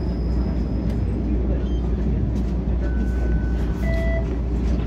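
TTC streetcar running, a steady low rumble heard from inside the car, with a few short faint squeaks about three to four seconds in.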